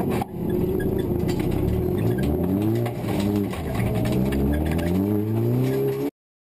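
MINI John Cooper Works race car's turbocharged four-cylinder engine, heard from inside the cockpit, accelerating hard. Its pitch climbs and falls back several times with the gear changes. The sound cuts off suddenly near the end.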